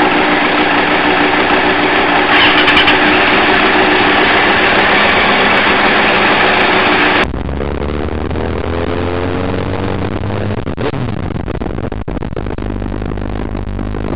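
Vehicle engine running hard under loud rushing noise, which cuts off abruptly about seven seconds in. It gives way to a quieter engine note that rises in pitch as it accelerates, then settles into a steady low hum.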